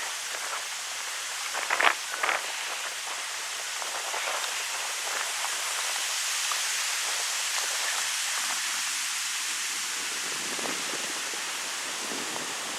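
Wind blowing through birch trees: a steady rushing hiss that swells a little in the middle, with a couple of brief crackles about two seconds in.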